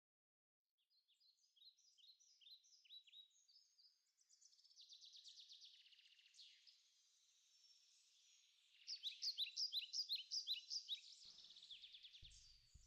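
Small songbirds chirping and trilling in rapid series of short, high, sweeping notes, growing busier and louder about nine seconds in.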